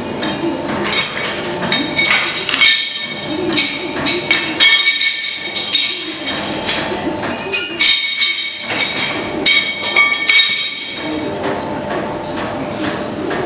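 Repeated clinking and knocking of metal and wood as workers handle a traditional vertical basket wine press by hand during the retrousse, when the pressed grape cake is broken up and re-piled. A steady hum runs underneath.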